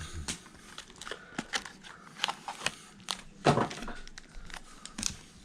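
Foil trading-card pack wrappers and card packaging being handled, crinkling and rustling in a string of small crackles, with a louder rustle about three and a half seconds in.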